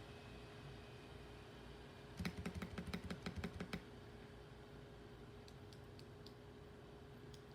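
Mechanical keyboard with lubed Akko CS Lavender Purple tactile switches being typed on: a quick run of about a dozen keystrokes starting about two seconds in and lasting about a second and a half, then a few lighter, fainter key taps near the end.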